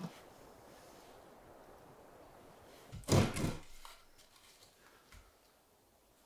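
A short knocking thump made of a few quick strikes, about three seconds in, over a faint background hiss.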